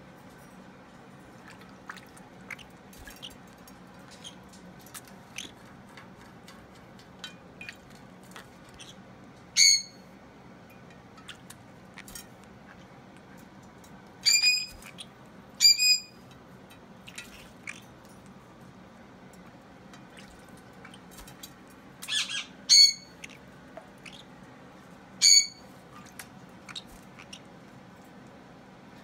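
A small pet bird sneezing after its bath: about six short, high, squeaky sneezes, spread out with two pairs close together. Faint scattered ticks run underneath.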